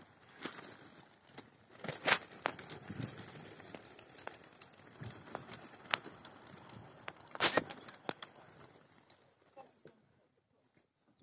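A large flock of racing pigeons flying overhead: a dense whirr of wingbeats full of sharp clicks, fading away about nine to ten seconds in.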